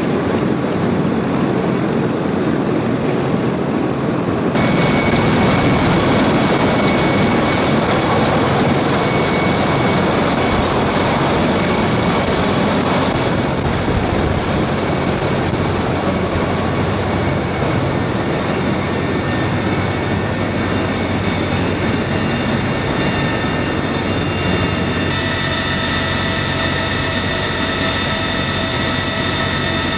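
CH-53E Super Stallion helicopters running on the flight line: a loud, steady noise of rotors and turbine engines. It grows louder and brighter about four seconds in. Near the end the sound is inside the helicopter's cabin, where several steady high whines ride over the din.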